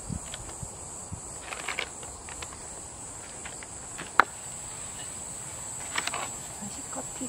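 A steady, high-pitched insect trill from the woods, with scattered rustles and clicks of gear being handled in a backpack; a sharp click about four seconds in is the loudest sound.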